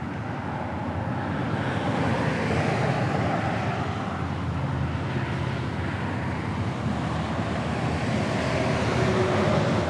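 Steady road noise from interstate traffic, a continuous rush that gently swells and eases as vehicles go by.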